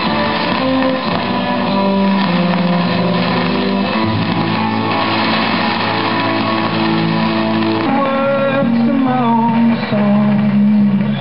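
Guitar music with some singing from a medium-wave AM broadcast, played through a 1942 Concerton V 443 valve radio. The sound is narrow and cut off above about 5 kHz, over a steady haze of static from a distant thunderstorm.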